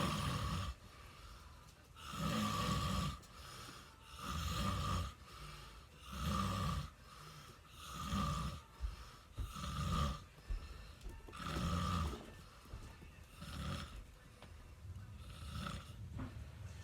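A sleeping person snoring: a regular run of loud, rasping snores, one about every two seconds, growing weaker over the last few seconds.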